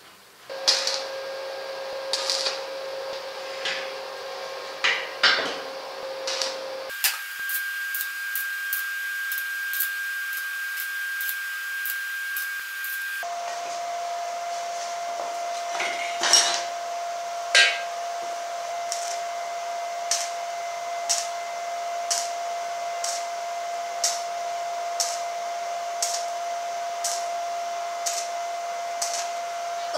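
Stick (arc) welding tack welds on a steel square-tube corner: the arc crackles and snaps sharply, roughly once a second later on, over a steady whine from the welding machine. The whine changes pitch abruptly twice.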